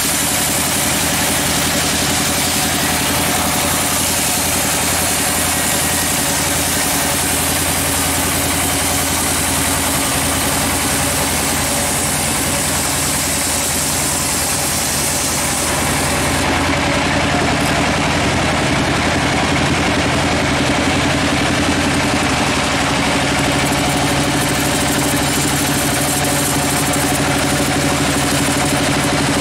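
Large vertical bandsaw mill running with a steady machine hum, its blade sawing lengthwise through a big teak log. A high hiss over the hum stops a little past halfway through.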